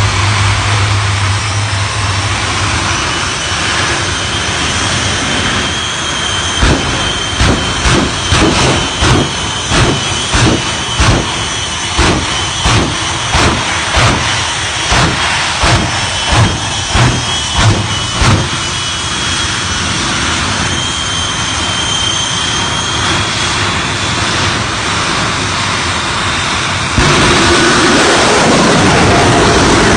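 Shockwave jet-powered semi truck's jet engines running, a steady roar with a high turbine whine, broken through the middle by a quick string of loud bangs from the afterburners as it throws fire. Near the end the roar steps up and stays louder.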